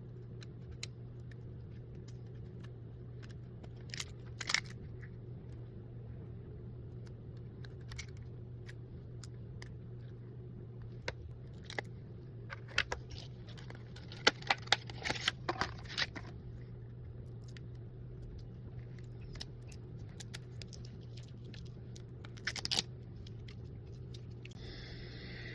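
Scattered small clicks and scrapes of tools and parts being handled during a smartphone screen replacement, busiest just past the middle, over a steady low hum. Near the end there is a brief higher tone.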